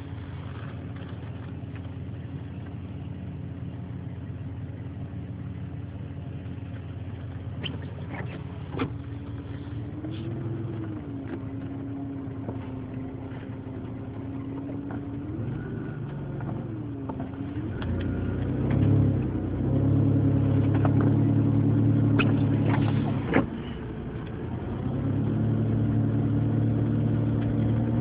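Car engine running while driving in snow, with steady road noise. The engine gets louder about two-thirds of the way in as the car accelerates, drops briefly, then picks up again.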